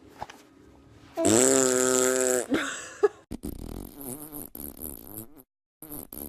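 A baby's fart, one loud buzz at a steady pitch lasting over a second. A sharp click follows, then a stretch of wavering, pitched sounds.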